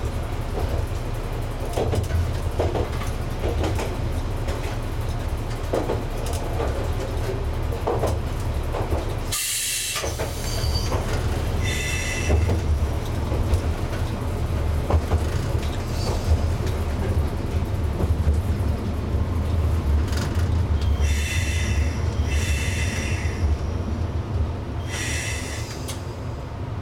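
Isumi 200-type diesel railcar running, heard from inside the cab: a steady low engine drone with scattered rail-joint clicks. A short bright hiss cuts in about ten seconds in, and high wheel squeals sound briefly about twelve seconds in and several times in the last few seconds.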